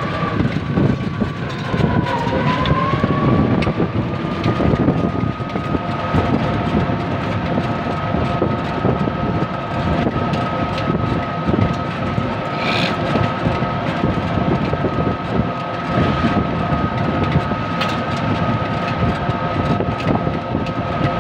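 Ride in an open-sided passenger three-wheeler: a steady high motor whine that dips briefly about two seconds in and climbs back, over road rumble and rattling. A short high squeak sounds about halfway through.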